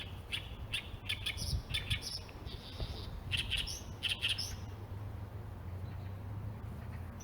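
Small birds chirping in quick short notes, busiest in the first four seconds or so and then dropping away, over a steady low background rumble.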